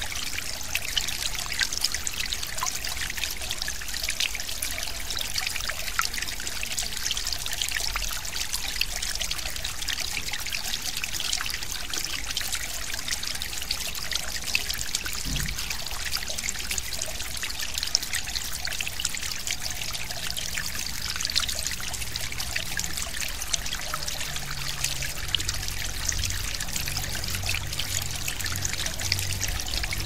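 Small forest stream flowing, a steady trickling and splashing.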